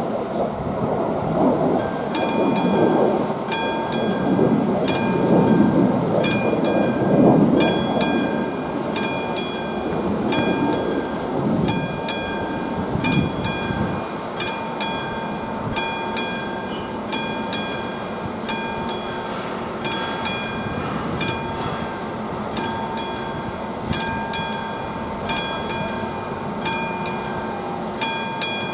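Level-crossing warning bell, a classic struck metal bell on AŽD 71 crossing signals, starting about two seconds in and ringing in even strokes about once a second: the crossing is warning of an approaching train. Through the first half a gusty low rumble of wind on the microphone runs under it.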